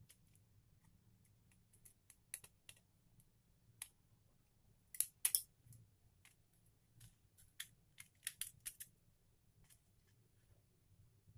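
Scattered light clicks and snips, loudest in a quick pair about five seconds in and a cluster around eight to nine seconds in, over a faint low hum.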